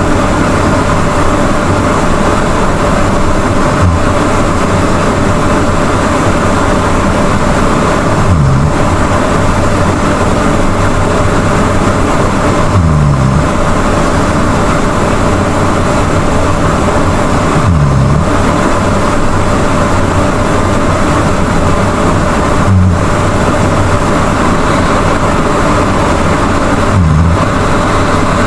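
A person snoring: a low, rough snore about every four and a half seconds, six times in all, over a loud steady hiss.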